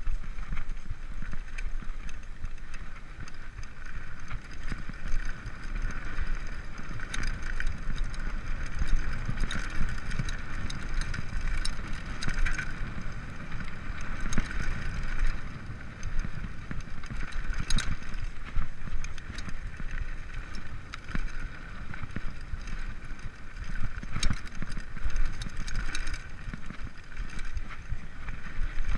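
Mountain bike riding over a bumpy dirt trail: a continuous rumble from the tyres and frame, with frequent rattles and knocks as the bike jolts over the ruts.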